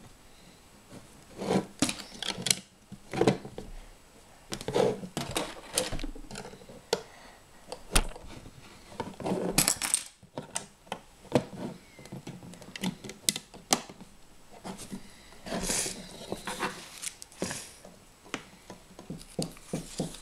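Plastic LEGO bricks clicking and clattering as small pieces are picked from a loose pile and pressed together by hand: irregular taps and clicks, with a couple of longer rustles.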